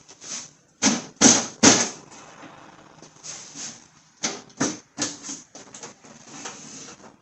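Three sharp knocks about a second in, then a run of smaller clicks and taps, as metal and plastic parts of a riding mower are handled.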